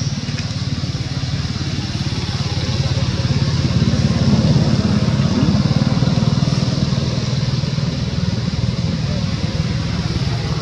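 A motor engine running steadily with a low pulsing hum that grows a little louder a few seconds in, over a steady high hiss.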